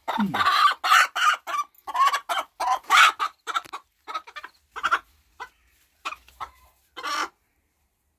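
A chicken squawking and clucking repeatedly while held in a man's hands: one long squawk at the start, then a run of short, sharp calls that grow sparser, the last about seven seconds in.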